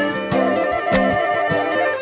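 Instrumental intro of a Hindi film song: held melodic notes and a repeating bass line over a steady beat, before the vocals come in.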